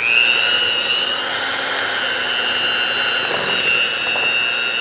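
Electric hand mixer creaming butter and sugar on low speed, its motor whine rising quickly at the very start and then running steadily.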